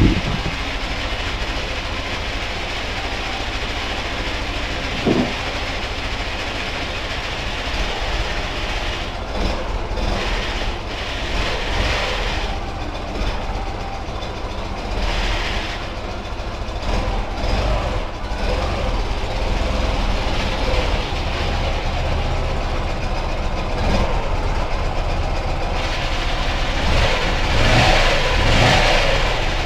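Ural motorcycle flat-twin engine running with its freshly rebuilt gearbox very noisy; the owner believes he assembled the gearbox wrongly. The noise is steady throughout and gets somewhat louder near the end.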